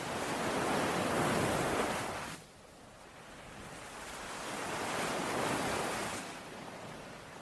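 Sea waves surging in twice: the first wash swells and cuts off abruptly about two and a half seconds in, the second builds more slowly and dies away about a second before the end.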